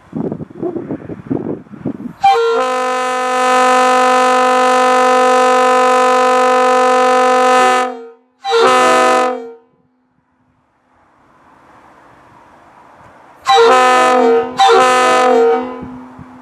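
Railroad locomotive air horn blown in blasts: one long blast of about five seconds, a short blast, then, after a rising hiss, two short blasts near the end. Knocking and clatter come before the first blast.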